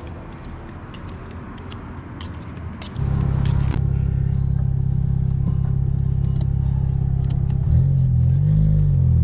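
Outdoor background noise with scattered clicks, then about three seconds in a sudden switch to the loud, low, steady hum of a car engine running.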